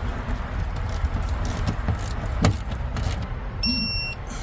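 Sharp metallic clicks and taps of a wrench on the nut of a new battery main cable being tightened, over a steady low rumble. A short electronic beep sounds near the end.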